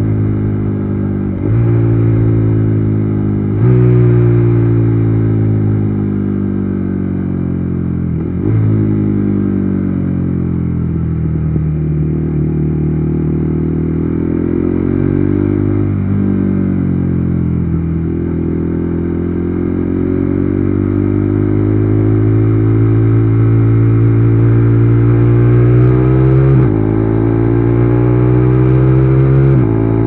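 KTM Duke 390 Gen 3's single-cylinder engine through an Akrapovic exhaust, ridden at speed. It slows with several downshifts, the note jumping up at each shift and then falling, then accelerates hard, the pitch climbing steadily with an upshift near the end.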